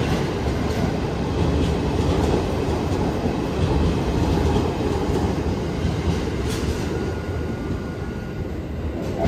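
A 12-car JR E353 series limited express electric train pulling out along the platform. Its steady running rumble carries faint wheel clicks and fades gradually over the last couple of seconds.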